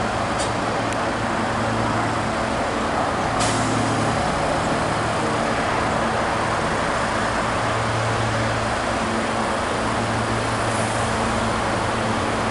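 SEPTA Silverliner V electric multiple-unit train approaching on the far track: a steady rumble with a low electric hum, and a couple of brief sharp clicks in the first few seconds.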